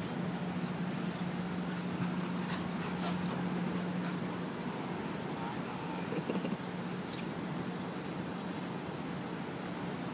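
Dogs playing around a person on grass, with faint short whimpers about six seconds in. Beneath them is a steady outdoor background hiss and a low hum that stops a little before halfway.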